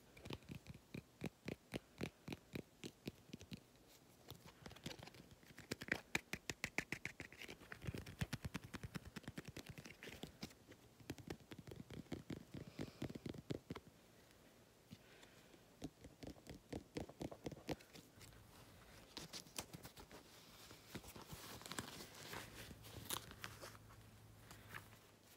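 Soft fingernail tapping and scratching on a plastic card, in quick runs of taps with short pauses between them.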